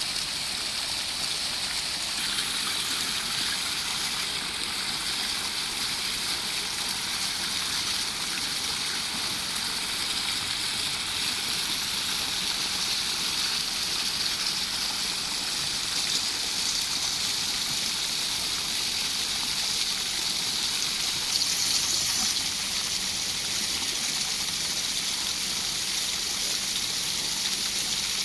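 Fountain water splashing and falling, a steady rushing splash with no pauses.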